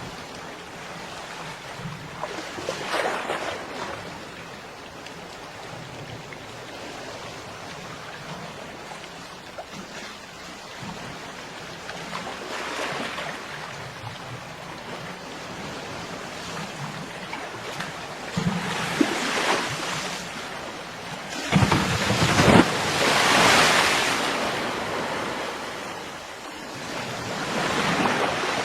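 Ocean waves breaking on a beach. The surf swells and fades every few seconds, with the biggest, loudest breakers a little past two-thirds of the way through.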